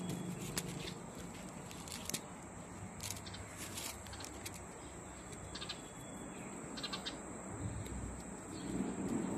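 Outdoor garden ambience: a steady high insect drone with short high chirps from insects and birds every second or so.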